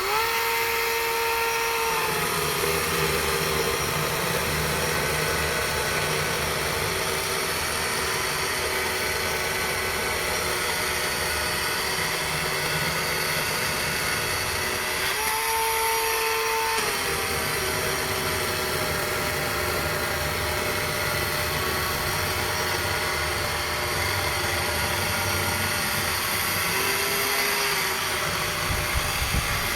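Echo 56-volt battery chainsaw running with a steady electric whine and cutting logs. Under load the whine drops slightly in pitch and a rough rasp of the chain in wood comes in. About halfway through, the saw spins freely at its higher pitch for a second or two, then cuts again, and it speeds up once more near the end.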